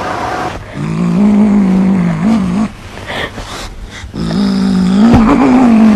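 A cat's two long, low, drawn-out yowls, each about two seconds, the second bending up slightly near the end.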